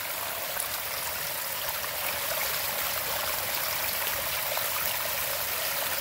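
Water from a pondless waterfall spilling over a grinder-cut stone lip and splashing onto the rocks below: a steady, even trickle. The lips are cut so the water kicks out and drips off the front of the stone.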